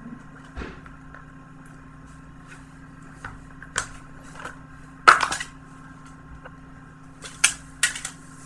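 Plastic Blu-ray disc case being handled and opened: a string of irregular clicks and snaps, the loudest about five seconds in and two more near the end.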